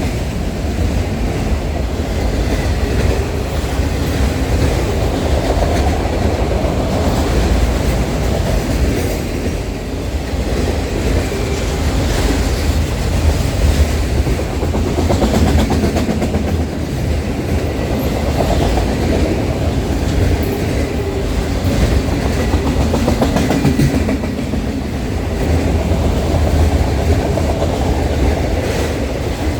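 Train cars rolling steadily past, wheels clicking over the rail joints with a continuous low rumble.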